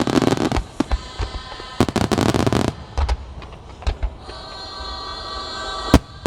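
Fireworks bursting: a sharp bang at the start, a dense crackling cluster about two seconds in, scattered single bangs, and one loud bang near the end. Music plays in the background.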